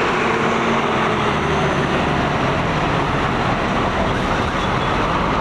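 Diesel engine of a Budiman coach bus pulling past close by and moving off, its engine note fading after the first second or two, over steady traffic noise.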